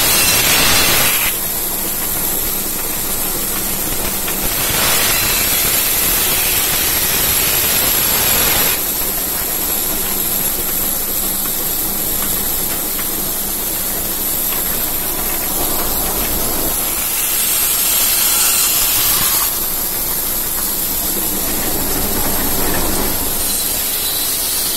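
Belt-driven workshop machine running steadily with a loud hiss, growing louder for a few seconds at a time.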